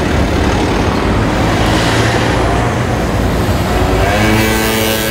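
A motor vehicle passing close by in street traffic, with a steady low rumble. About four seconds in its engine note rises in pitch as it accelerates, then holds.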